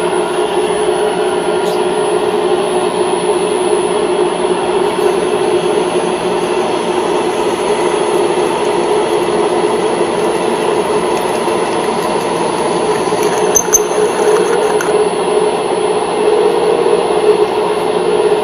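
Cincinnati Toolmaster 1C milling machine running with its spindle turning, drilling a hole through a thin metal plate with a twist drill. It makes a steady mechanical hum with a constant high whine over it.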